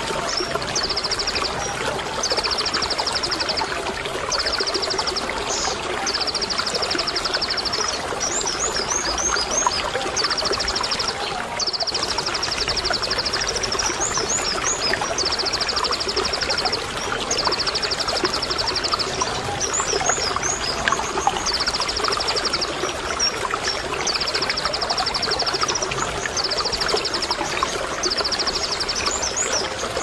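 A konin sunbird's rapid, high 'tembakan' trills, a dozen or so bursts each a second or two long with short rising chirps between them, over steady running water.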